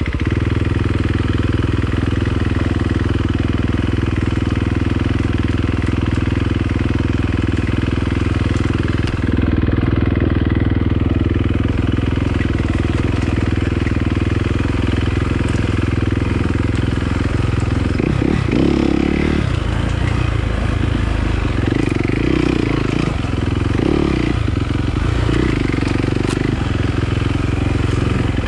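Yamaha dirt bike engine running at a steady low speed on a trail ride. From about two-thirds of the way in, its pitch rises and falls in short swells as the throttle is worked.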